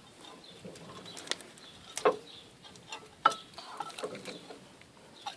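Scattered metal clicks and knocks from brake pads and caliper parts being handled and fitted, the sharpest about two seconds and three seconds in.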